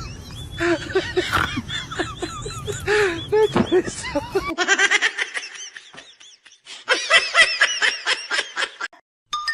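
Laughter in rapid repeated pulses, heard across three short clips cut one after another.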